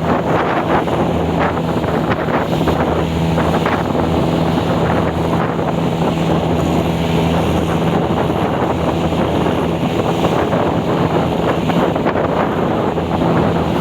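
Boat engine running at a steady, even drone, with wind buffeting the microphone.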